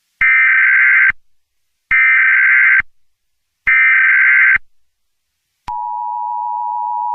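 Emergency Alert System SAME header: three bursts of warbling data tones, about a second each, marking the start of an emergency alert. About five and a half seconds in, the steady two-tone EAS attention signal begins and keeps sounding.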